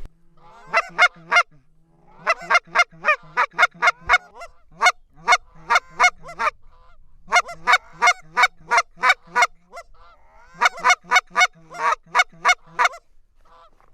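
Goose calls blown in rapid runs of short honks and clucks, about four or five a second, with a few short breaks, calling to incoming geese.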